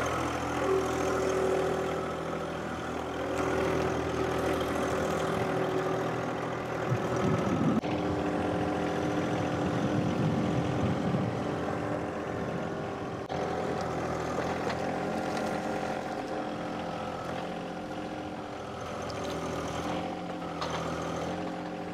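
John Deere compact tractor's diesel engine running steadily at working speed as it drives with a load in the front-loader grapple, its pitch shifting briefly a few times.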